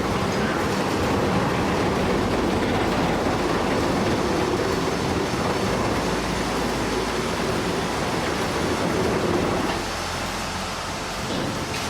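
Steady heavy-vehicle rumble with no clear rhythm, easing slightly near the end.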